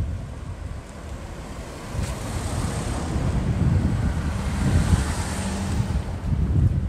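Wind buffeting the microphone: an unsteady low rumble with a rushing hiss, which gets stronger about two seconds in.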